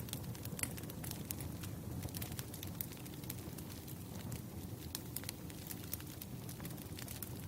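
Wood fire crackling: irregular sharp snaps and pops of burning firewood over a low, steady rumble.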